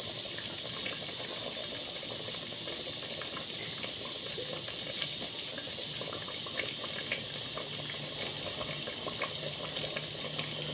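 Mutton-bone curry simmering in an open pressure cooker: a steady hiss with small crackles and pops from the bubbling gravy.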